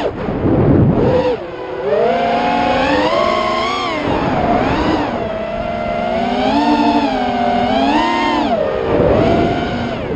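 FPV drone's brushless motors and propellers whining, the pitch rising and falling with throttle changes. A rush of wind noise comes about half a second in and again near the end.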